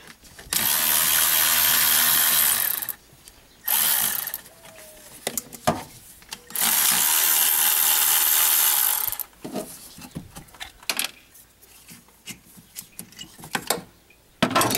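Milwaukee 12-volt cordless ratchet running in three spells, spinning out bolts: about two and a half seconds, then a short burst, then another two and a half seconds. Scattered clicks of the tool and socket being handled come between the spells and after them.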